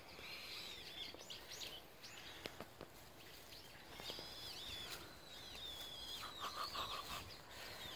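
Small birds chirping in short, repeated arched calls, with a few faint ticks and rustles among them.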